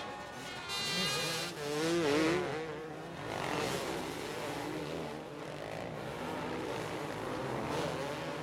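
Several motocross race bikes at full throttle, their engines revving up and down, with pitch rising and swooping as riders accelerate and shift.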